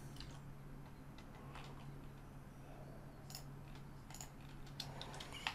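Faint, scattered clicks of a computer mouse and keyboard, over a steady low hum.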